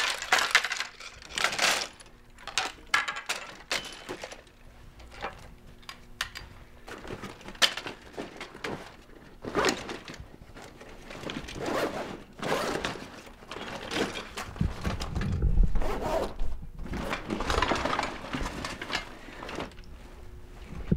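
Folding-kayak frame ribs clattering and knocking against each other as they are packed into a fabric bag, with the bag's cloth rustling, and a louder shuffle of handling about three quarters of the way through.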